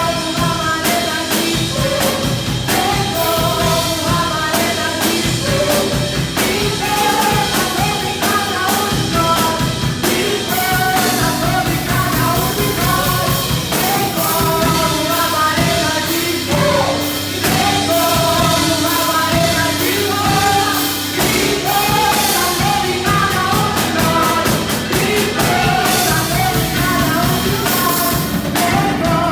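Live worship song with a rock band: singing over drum kit, electric guitar and bass.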